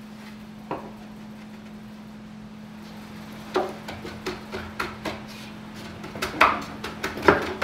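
Wooden knocks and clunks as a hardwood frame with veneered panels is handled and shifted on a workbench. There is one knock about a second in, then an irregular run of taps and knocks from about halfway on, over a faint steady hum.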